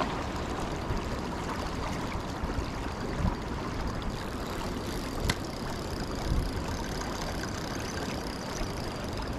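Shallow river current running over a stony riffle, with a low, uneven wind rumble on the microphone and a single sharp click about five seconds in.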